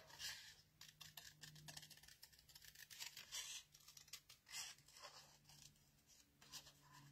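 Small craft scissors snipping through cardstock, fussy cutting closely around a stamped image: faint, irregular short snips.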